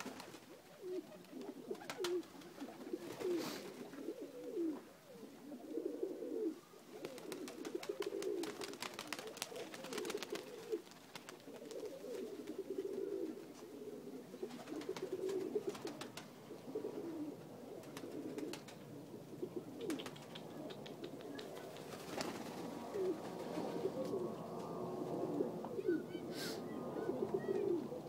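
A flock of domestic pigeons, Macedonian dunek, cooing continuously in low warbling calls that overlap. A few sharp clicks break in now and then.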